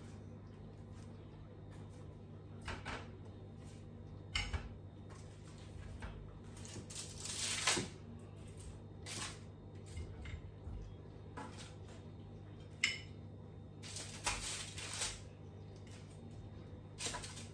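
Metal tongs knocking and scraping against a roasting tin and china plates as roast potatoes are lifted out and served: scattered clinks and a few longer scrapes, the longest about halfway through, over a steady low hum.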